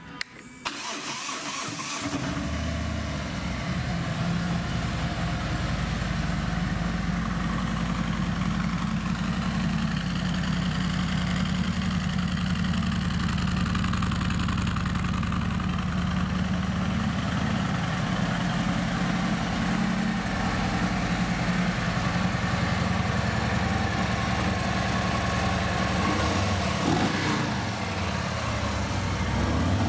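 Harley-Davidson Tri Glide's 107-cubic-inch Milwaukee-Eight V-twin being started: a click, a short crank of the starter, and the engine catches about two seconds in, then idles steadily.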